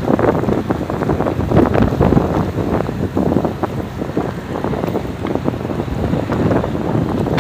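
Strong wind buffeting the microphone: a loud, rough rushing noise broken by many short crackling gusts, with the sea beneath it.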